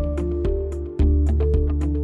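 Background music: sustained pitched notes over a strong bass with a steady, quick beat.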